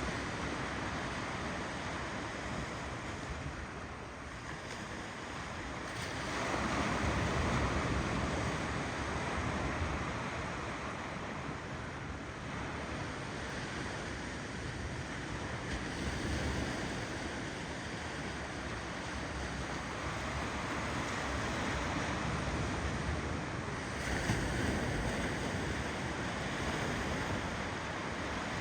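Ocean waves rolling in: a steady wash of surf that swells louder about six seconds in and again near the end.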